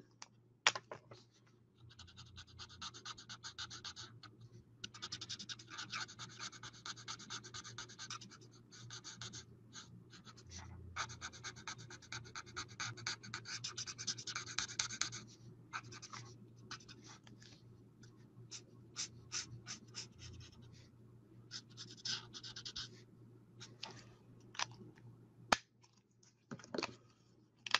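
Alcohol marker nib rubbing back and forth on cardstock while colouring and blending, a quick scratchy stroking in runs with short pauses, busiest in the first half and sparser later. A faint steady low hum sits underneath.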